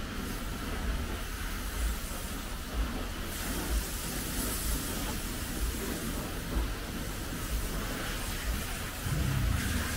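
High-pressure car-wash hose spraying water, a steady hiss that grows louder about three seconds in, with irregular low thumps throughout.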